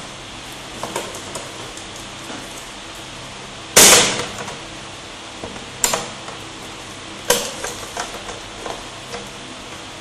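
Hard plastic knocks and clicks as the stand panel on the back of an HP all-in-one PC is lifted and set back down. One loud knock comes a little under four seconds in, two sharper knocks follow about two and three and a half seconds later, and a few lighter clicks fall between.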